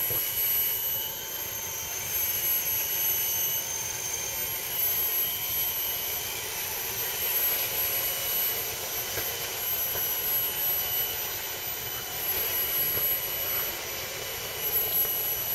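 Electric motors and gear trains of several scale RC crawler trucks whining steadily as they wade through a shallow stream, over a constant hiss of water. The high whine fades in and out as the trucks pass.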